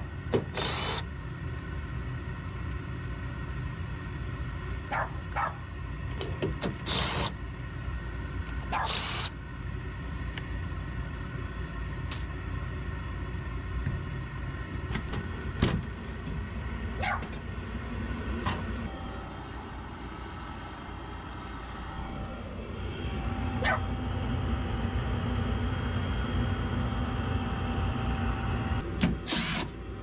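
Cordless impact driver running in a few short bursts as it backs out the sheet-metal screws on a rooftop-style gas pack's access panel, with light clicks and clanks of the metal panel being handled between runs. A steady low background noise runs under it, and a steady tone joins it in the second half.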